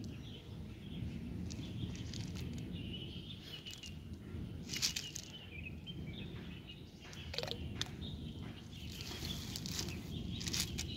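Outdoor background noise, a steady low rumble, with faint intermittent bird chirps and a few short sharp sounds, the clearest about five seconds in.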